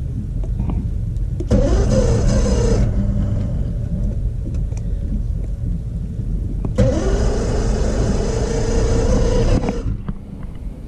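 Boat engine's starter cranking twice, first briefly and then for about three seconds, each time a whine that rises and then holds without the engine catching; the engine is flooded. A steady low engine rumble runs underneath.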